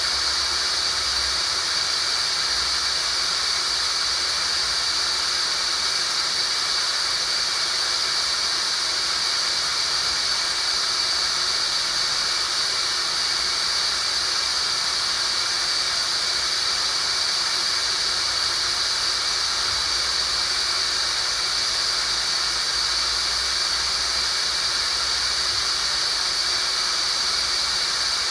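Synthetic tinnitus sound-therapy signal: a steady, unchanging hiss with a strong high-pitched whine riding on top of it.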